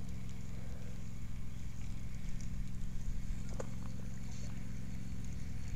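Spinning reel being cranked to retrieve a spinnerbait, a faint steady whir over a constant low hum, with a couple of faint clicks about halfway through.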